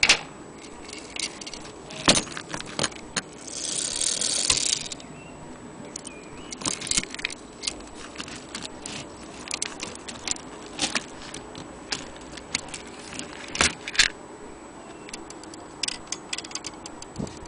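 Metal clinks and rattles of an old brass longcase clock movement being handled: its iron drive chain jangling, with scattered sharp clicks and taps of metal parts and one longer rattle about four seconds in.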